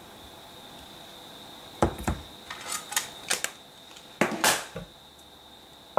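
Sharp clicks and taps of small craft items being handled and set down on a worktable: two knocks, a quick run of clicks, then a louder cluster near the end. A faint steady high-pitched whine runs underneath.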